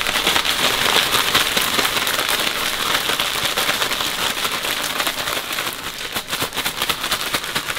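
Zip-top plastic bag of crappie cubes and seasoning being shaken by hand: a dense, steady crinkling rustle that eases a little near the end.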